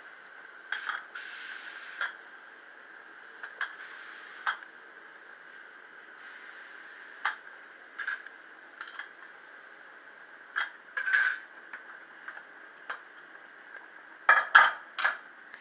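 Steam escaping from a pressure cooker's weight valve in several short hisses, each about a second long, with scattered light metallic clicks. Near the end come a few louder metal clinks from the pot.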